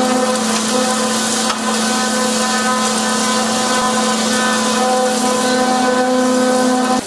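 SVHT-3800 hydro excavator running: its machinery gives a steady pitched drone, with a loud hiss over it as the high-pressure water lance cuts into the soil.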